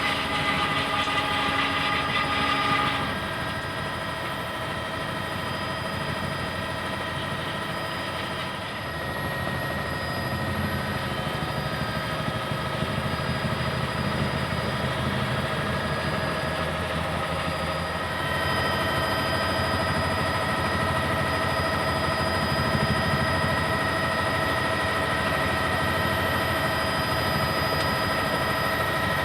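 A helicopter's turbine engine and rotor heard from aboard: a steady drone with several high, steady whining tones. The sound changes character about three seconds in, and the whine brightens again about two-thirds of the way through.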